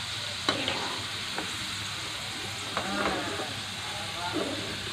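Batter-coated cauliflower pieces deep-frying in hot oil, a steady sizzle, as a slotted metal spatula scoops the fried pieces out with a few light clicks against the pan.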